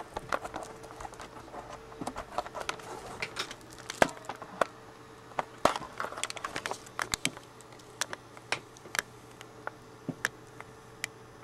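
Handling noise: irregular clicks, taps and rustles as plastic action figures and their cloth costumes are moved about by hand, over a faint steady hum.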